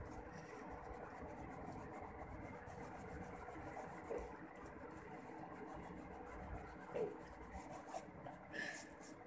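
Rubber eraser rubbing back and forth on paper, erasing pencil lines. The rubbing stops shortly before the end.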